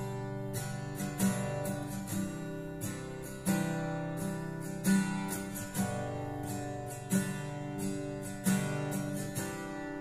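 Steel-string Yamaha FX310 acoustic-electric guitar being strummed, chords ringing on between strokes, with a few sharply accented strums where the chord changes.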